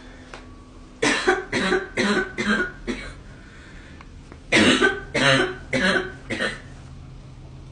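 A girl coughing in two quick fits: about six coughs in a row starting a second in, then about five more beginning past the middle.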